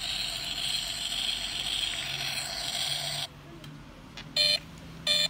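Electronic sound effects from a die-cast toy car's built-in light-and-sound module, coming through its small speaker. A steady rushing engine-type noise runs for about three seconds and cuts off suddenly, then two short buzzy beeps follow near the end.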